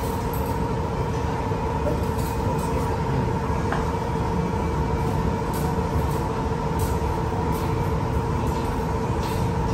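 Steady mechanical drone with a constant hum over a low rumble, with a few faint clinks of forks and knives on iron steak plates.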